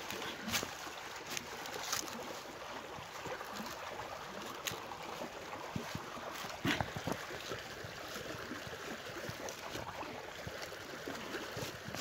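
Steady rushing of a river or stream, with scattered short crackles and rustles of dry leaves and twigs.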